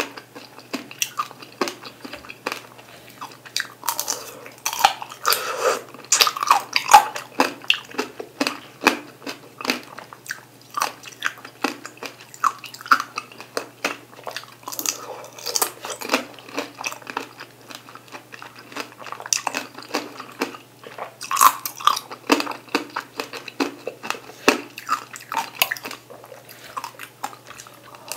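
Chewing and crunching of sugar-glazed tangerine tanghulu: the hard candy shell cracks in many irregular sharp crackles, in clusters with short lulls between bites.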